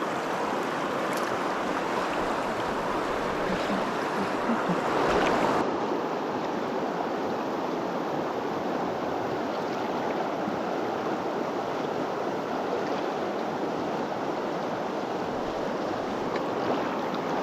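River current rushing steadily, an even noise of flowing water. A few faint knocks come in the first five seconds.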